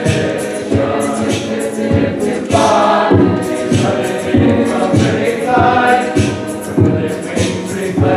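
Large mixed high-school choir singing in harmony, with a steady beat of about two strokes a second under the voices.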